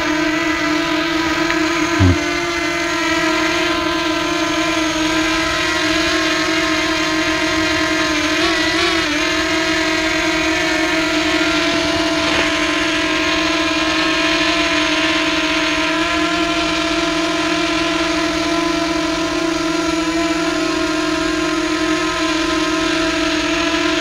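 Potensic Atom SE quadcopter hovering close by: its four propellers keep up a steady whine made of several even tones, wavering briefly about nine seconds in. A short knock comes about two seconds in.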